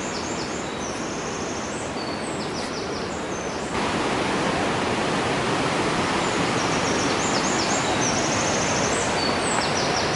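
Steady rush of the fast-flowing Belaya River in its gorge, growing louder about four seconds in. Small birds twitter in quick repeated notes above it.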